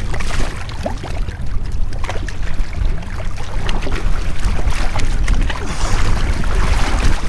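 Water sloshing and splashing in irregular short splashes as a bull redfish is held in the water beside a boat to revive it, with wind buffeting the microphone in a steady low rumble.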